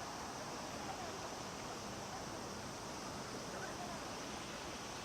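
Cicadas calling in a steady, continuous chorus.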